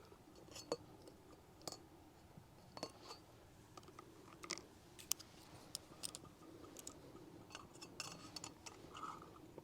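Faint, scattered clicks and light clinks of a camping cook pot and its lid being handled.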